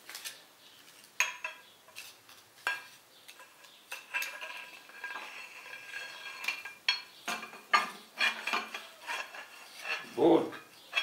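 Steel gearbox main shaft and a long steel rod clinking and scraping against each other and the cast-iron housing of a U-445 tractor gearbox as the shaft is test-fitted: a run of sharp metallic clicks with brief ringing. A short low hum comes near the end.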